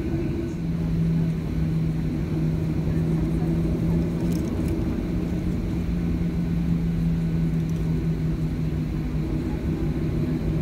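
Cabin noise of a Boeing 737-700 taxiing, heard from inside by a window over the wing: the CFM56 turbofans run at low taxi power as a steady rumble with a low hum that sets in about half a second in.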